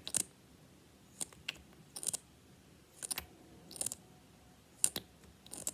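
Lip gloss applicator wand being pulled out of and worked in its tube, making a series of short soft pops and clicks about every second, some in quick pairs.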